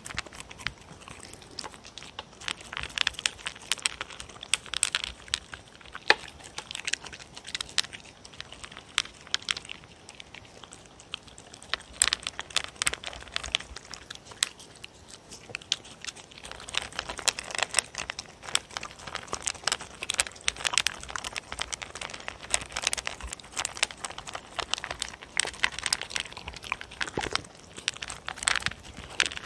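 Dog eating dry kibble from a plate right beside a microphone: a dense, irregular run of crunches and chewing clicks. Near the end, a second dog eats from the same plate.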